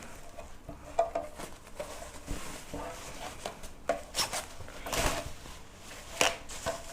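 A windshield being handled in hard foam packing: scattered knocks, scrapes and rubbing as it is worked out of the box.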